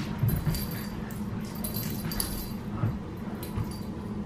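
Australian cattle dogs, a puppy among them, play-wrestling: scuffling with soft scattered thumps, a few short clicks and small dog noises.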